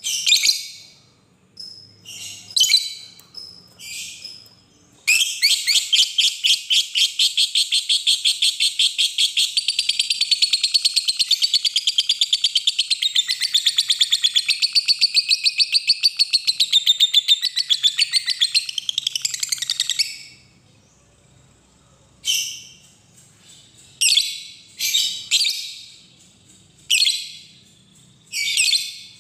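Lovebird calling: a few sharp chirps, then from about five seconds in a long, rapid chattering trill lasting about fifteen seconds, the long 'ngekek' chatter that lovebird keepers prize, followed by more short chirps.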